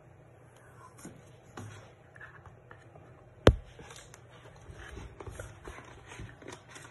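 Paper release liner of a Wham Bam adhesive sheet being peeled back and handled, with irregular crinkling and rustling. One sharp knock about halfway through stands out as the loudest sound.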